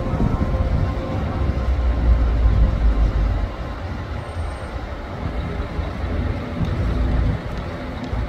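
Urban street traffic: a steady low rumble of passing vehicles, loudest about two to three seconds in.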